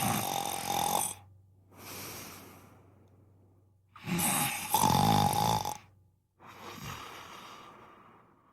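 A man snoring: loud, rattling snores on the in-breath, each followed by a softer, fading out-breath, repeating about every three seconds.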